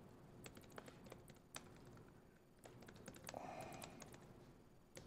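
Irregular keystrokes on a MacBook Air laptop keyboard, heard faintly, with a brief faint low sound about three seconds in.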